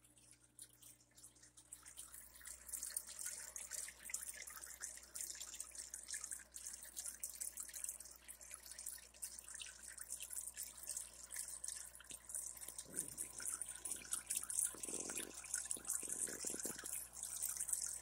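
Aquarium water trickling and bubbling, with a dense patter of drip-like ticks. It gets louder about two seconds in, and a few fuller bursts of water sound come near the end.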